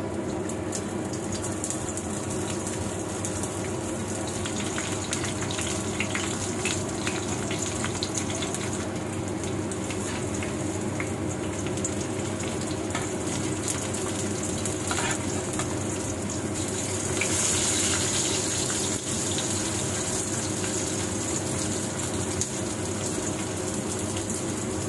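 Dried fish (daing) sizzling and crackling steadily as it fries in hot oil in a wok, growing louder for a couple of seconds about two-thirds of the way through.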